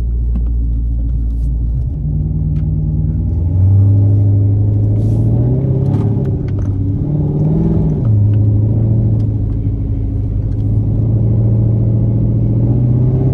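392 HEMI V8 (6.4-litre) engine running loud at low revs, then pulling harder about three and a half seconds in. Its note rises and falls around the middle before settling into a steady drone.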